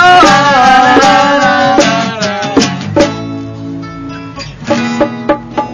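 Live acoustic rock band: a singer holds a wavering note over strummed acoustic guitar. About three seconds in the guitar chord is left to ring and fade, then a few short, sharp strums follow near the end.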